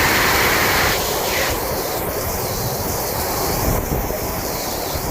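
Heavy rain pouring down in a storm, a steady hiss, with wind buffeting the microphone and rumbling underneath.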